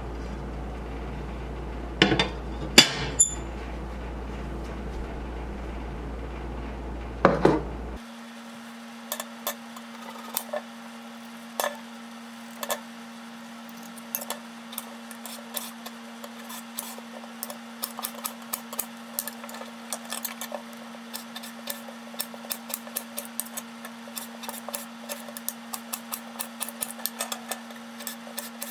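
Dishes and utensils clinking and knocking over a steady hum, a few sharp clinks at first; then a run of light taps that gets quicker and denser toward the end.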